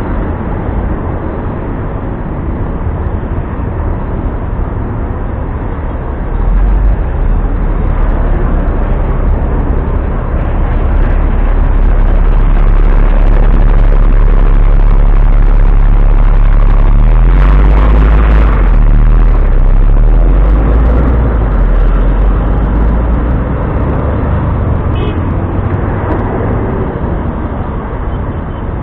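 Heavy street traffic at an intersection. A bus alongside adds a deep engine rumble that comes in about six seconds in, is loudest midway with a brief rise in pitch, and fades a few seconds before the end.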